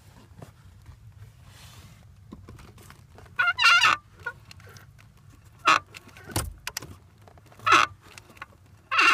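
Clutch pedal of a 2009 Subaru WRX squeaking as it is worked: about four short squeaks, roughly two seconds apart.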